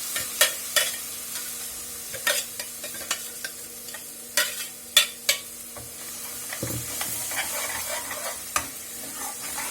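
Ground thuthuvalai leaf paste with onion and tomato sizzling in ghee in a kadai as it is stirred, with a steady hiss and several sharp scrapes and clicks against the pan, the loudest about half a second in and around five seconds in. It is being sautéed so its raw smell cooks off.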